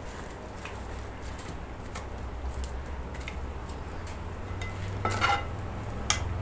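Light scattered clicks of firewood sticks being pushed into a wood-fired stove, then a metal ladle clattering against a metal pan of simmering kurma about five seconds in, with one sharp clink shortly before the end.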